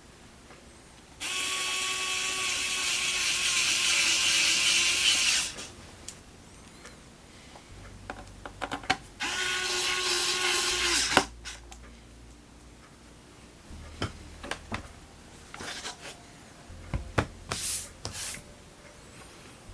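A small electric screwdriver running twice, about four seconds and then about two seconds, turning laptop case screws, followed by a few light clicks of small parts being handled.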